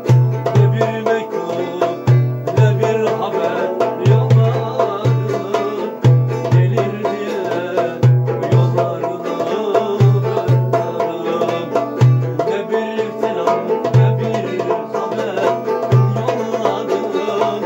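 Turkish folk tune on a bağlama (saz), plucked with a steady drum beat underneath: a pair of deep beats about every two seconds.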